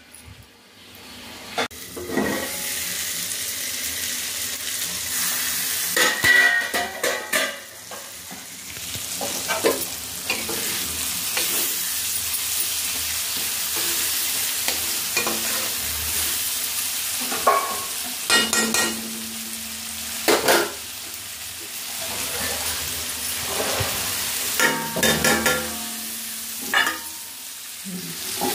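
Tomato masala sizzling steadily in an aluminium kadai, with a metal spatula stirring, scraping and knocking against the pan now and then.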